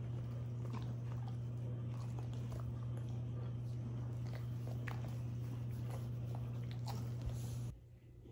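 A dog chewing, faint irregular clicks and crunches over a steady low hum; the sound cuts off shortly before the end.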